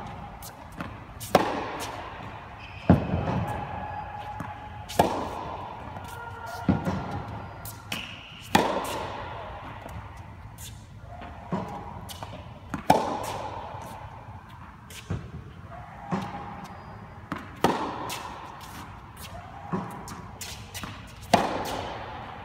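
Tennis racket striking the ball in a steady rally of groundstrokes, about a dozen hits roughly every one and a half to two seconds, each crack echoing around an indoor court hall, with lighter ball bounces between.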